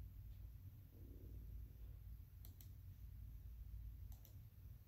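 Near silence with faint computer-mouse clicks: a quick double click about two and a half seconds in and another near the end.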